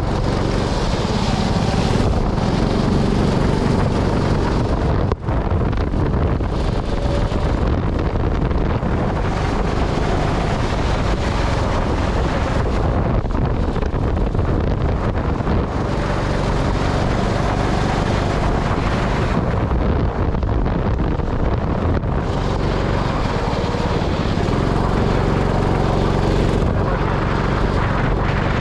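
Go-kart engine running continuously under power, its pitch shifting a little with speed, mixed with heavy wind noise on the microphone.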